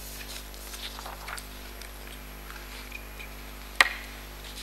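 Soft handling noises picked up close to a bench microphone over a steady low hum, with one sharp knock a little before the end.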